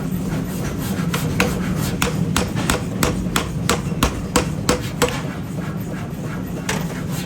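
Metal being struck with a hammer in a forging workshop: a run of quick, sharp blows, about three a second, that stops about five seconds in, with a couple more near the end, over a steady machine hum.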